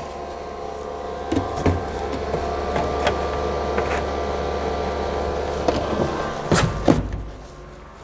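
Steady machine hum, likely the workshop's exhaust fan, under scattered knocks and clunks as the laser cutter is loaded. Two louder knocks come near the end, after which the hum drops away.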